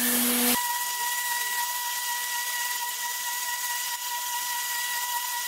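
Tornador Black cleaning gun blasting compressed air and water into car carpet: a steady hiss with a thin high whistle. It is louder for about the first half second, then settles.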